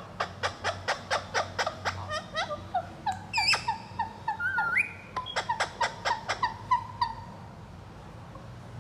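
Indian ringneck parrot calling in a rapid run of short, sharp chirps, about three a second, with a couple of whistled glides in the middle. The calls stop about seven seconds in.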